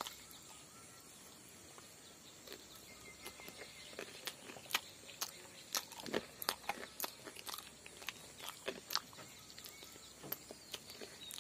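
Chewing and lip-smacking of a person eating pumpkin by hand: a quiet, irregular string of small wet clicks.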